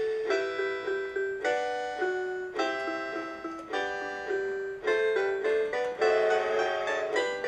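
Holiday melody in electronic piano-like tones from the built-in music player of a Mr. Christmas Santa's Train Express toy train, a run of short struck notes in a steady rhythm.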